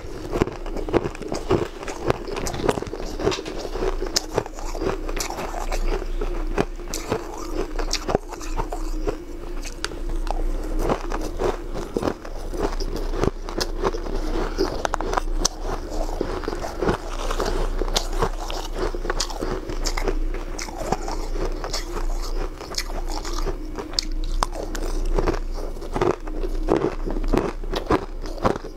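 A person eating fluffy shaved ice: many small, irregular crunches as mouthfuls are bitten and chewed.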